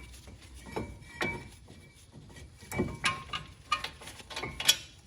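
Irregular metallic clinks and knocks from the front brake caliper bracket and its bolts being taken off a 2010 Chrysler Town & Country, some with a short ring. They grow louder and come more often after about three seconds.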